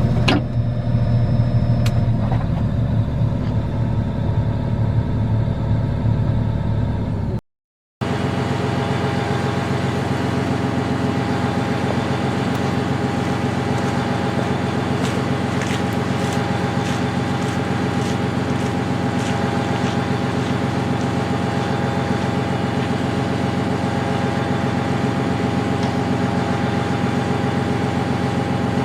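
John Deere 1270E forestry harvester's diesel engine running steadily, with a thin steady whine over it. The sound cuts out completely for about half a second roughly seven and a half seconds in, then resumes.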